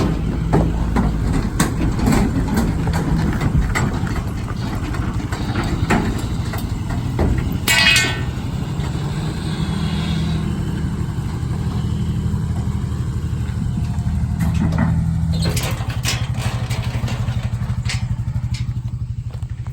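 Vehicle engine idling steadily, with scattered knocks and clanks and a brief metallic rattle about eight seconds in, from a loaded livestock trailer.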